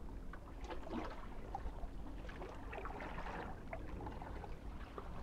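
Small sea waves lapping and sloshing gently against shoreline rocks, an irregular watery splashing with small crackles.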